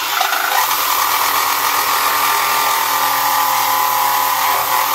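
WESCO 20V cordless jigsaw running steadily, its reciprocating blade cutting into a wooden board.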